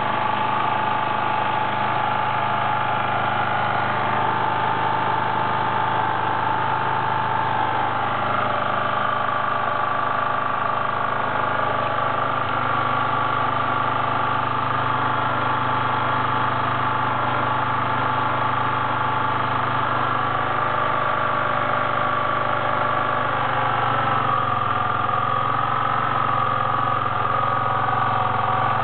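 Suzuki GSR 125 scooter's single-cylinder engine running steadily at low revs, with a steady high tone riding on top that shifts pitch about eight seconds in and again near the end. This is the noise the owner is recording as abnormal.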